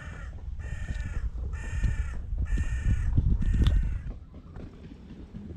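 A crow cawing five times in a steady series, about one harsh caw every 0.8 seconds, stopping about four seconds in. Low rumble and rustling close to the microphone run underneath.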